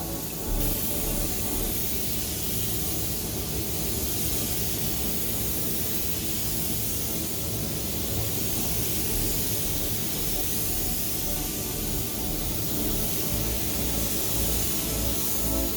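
Air-fed paint spray gun spraying in one long continuous hiss, starting about half a second in, over background music.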